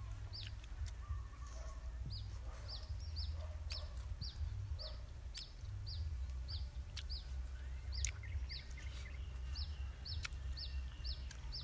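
Outdoor bird sounds: a small bird repeats short, high, falling chirps about two to three times a second, with chickens clucking now and then. A steady low rumble sits underneath.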